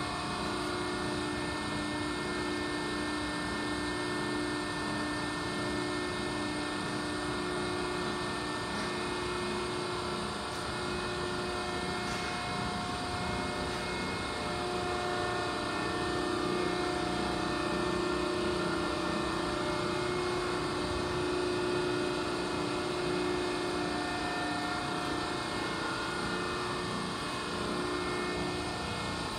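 Cincinnati 175-ton CNC hydraulic press brake standing under power, its hydraulic pump and motor running: a steady machine hum with a few held whining tones, a little louder from about halfway through.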